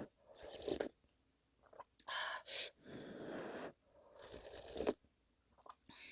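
Close-miked crunchy chewing of fresh napa cabbage kimchi (geotjeori), in several separate bites and chews with short quiet gaps between them.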